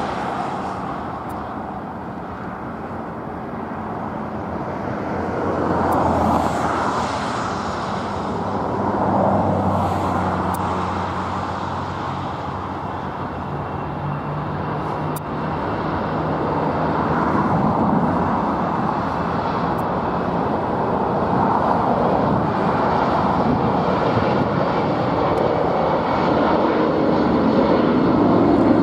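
Jet airliner engines on a landing approach: a steady rumble that swells and eases several times.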